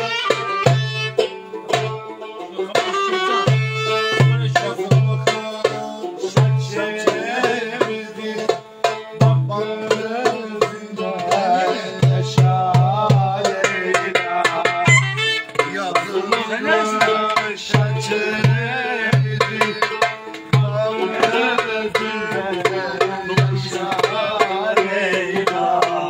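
Live Turkish wedding dance music: a deep drum beats out a repeating rhythm under a wavering, ornamented melody line.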